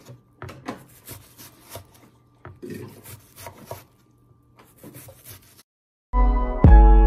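Chef's knife dicing a red onion on a wooden cutting board: a run of quick, irregular knocks of the blade hitting the board. About six seconds in, loud background music cuts in.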